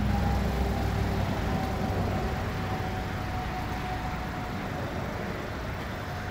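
Steady rumble of road traffic outdoors, with a faint steady hum running through it.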